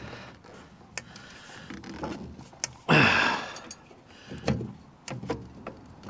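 Handling noises from a steel fuel tank being worked into place on a lawn mower's frame: scattered light knocks and clicks, with a louder scrape about three seconds in.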